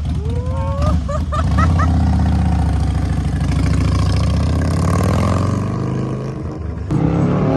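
Motorcycle engine running with a deep, steady rumble.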